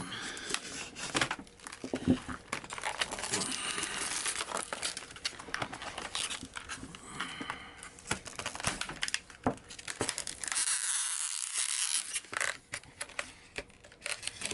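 Knife cutting and tearing open product packaging, with crinkling, crackling and sharp clicks and snaps throughout.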